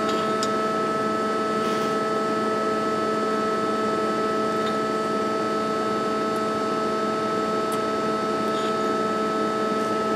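Steady hum of a powered-up CNC lathe, with several fixed tones. A few faint clicks come as the tailstock quill is turned with a lever.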